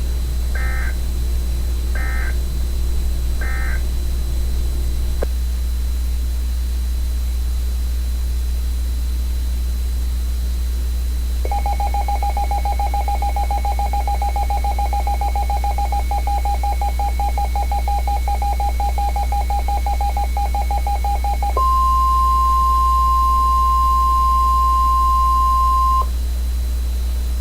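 NOAA Weather Radio Emergency Alert System tones. Three short SAME header data bursts come in the first four seconds, then a few seconds of low hum. A rapidly pulsing two-tone EAS attention signal follows for about ten seconds, then a louder steady single warning tone near 1 kHz for about four seconds, the tone that alerts weather radios before a warning is read.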